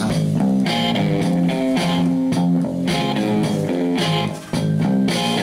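A song's instrumental guitar passage played from a phone through a homemade TDA2003 audio amplifier into a small speaker, the amplifier running from a 12 V battery.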